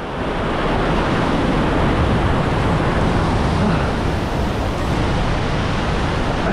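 Steady rush of ocean surf and wind.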